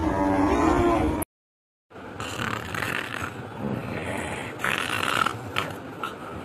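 A bovine moo, a pitched lowing call that cuts off about a second in. After a short silence comes a rough, noisy sound with a few louder bursts and one sharp click.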